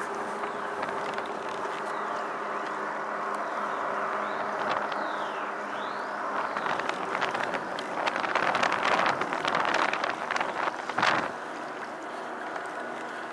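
Choppy harbour water slapping and splashing against a pedal-driven kayak's hull as it moves along, with wind buffeting the microphone and a faint steady hum underneath. The splashing grows busier about halfway through, then eases near the end.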